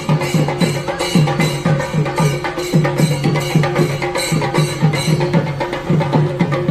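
Chenda melam: Kerala chenda drums and cymbals played in a fast, steady rhythm, with a held note sounding above the drumming.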